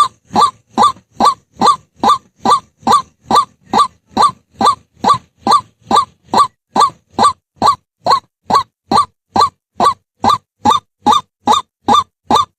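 White-breasted waterhen calling: a long, unbroken run of short, evenly spaced notes, each rising in pitch, about two and a half per second.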